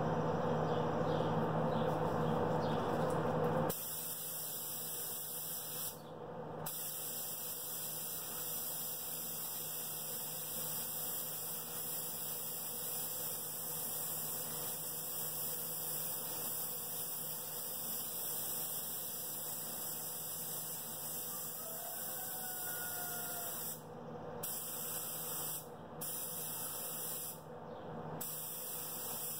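Compressed-air paint spray gun hissing in long passes, with several brief breaks as the trigger is let off. A louder steady hum stops about four seconds in.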